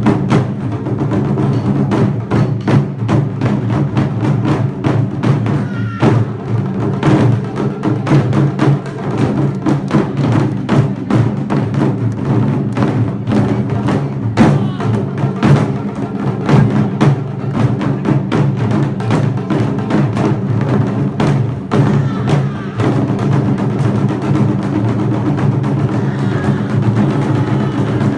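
Percussion-led music: dense, rapid drum strikes over a steady sustained low backing.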